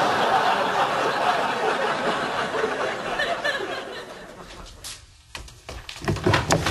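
Studio audience laughing, dying away over about four seconds, followed by a few sharp clicks and knocks near the end.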